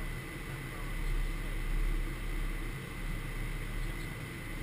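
Flight-deck noise of a Gulfstream G550 business jet in flight: a steady rush of airflow over a low rumble, with a thin steady tone running through it.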